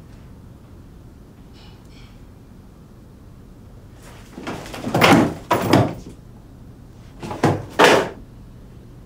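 Heavy thuds and rattling on a hotel room door, coming in two groups: about three blows between four and six seconds in, and two more near the end.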